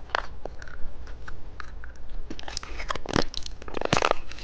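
Candy and its plastic packaging handled close to the microphone: a run of short, crisp crackles and crunches, with two louder rustling bursts near the end.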